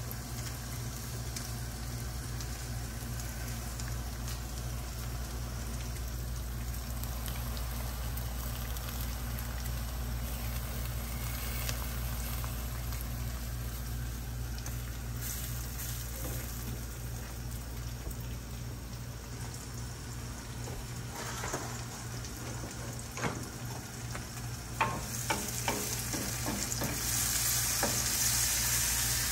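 Onion soffritto sizzling gently in olive oil in an aluminium frying pan, a steady soft hiss over a low hum. A few light knocks come in the last third, and the sizzle grows louder near the end as a wooden spoon stirs the pan.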